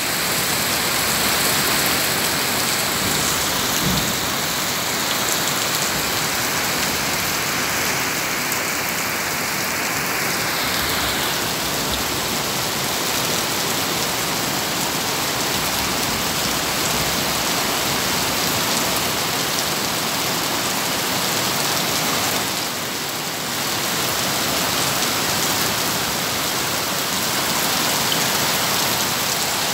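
Heavy rain pouring down steadily, an even, dense hiss.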